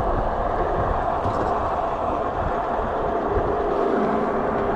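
Wind rushing over the microphone and tyre noise from a Juiced Scrambler electric bike riding at about 30 mph, with a faint steady whine running through it.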